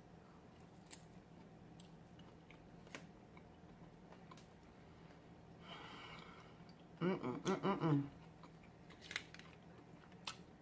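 A person chewing fried, battered seafood, with scattered soft crunches and mouth clicks. About seven seconds in there is a short hummed voice sound, the loudest moment.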